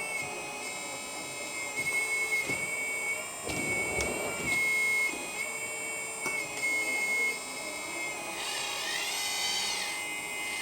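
Electric hydraulic pump of a 1/14-scale RC hydraulic excavator running with a steady high whine. Its pitch and level shift every time the control valves work the boom, arm and bucket. Near the end come two longer whines that rise and then fall in pitch.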